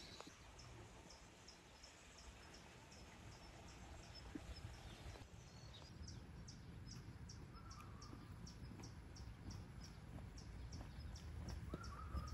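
Faint outdoor ambience: a steady low rumble under a short, high chirp that repeats about two to three times a second. A couple of brief higher calls come in near the end.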